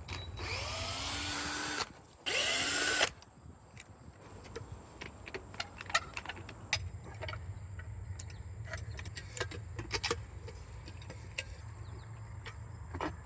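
A power drill running in two short bursts, the first about a second and a half, the second shorter, followed by scattered clicks and knocks.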